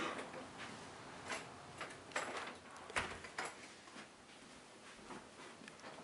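Quiet footsteps with a few light knocks and clicks, roughly one every second, the sharpest about three seconds in.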